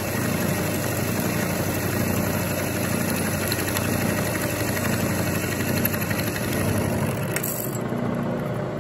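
Milling machine running with an end mill taking a side cut along a metal T-nut block: a steady machining hum and cutting noise. About seven and a half seconds in the sound thins out as the cutter runs off the end of the block.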